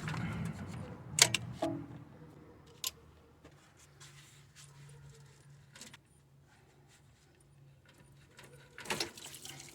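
Metal clinks and clicks of hand tools working the spring clamp on a car's lower radiator hose. A rattle at the start ends in a sharp click about a second in, then a few lighter clicks. After that it is mostly quiet until another short cluster of clinks near the end.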